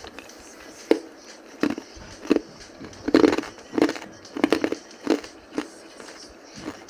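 Hard ice being bitten and chewed, a series of sharp crunches at irregular intervals with a denser run of crunching about three seconds in.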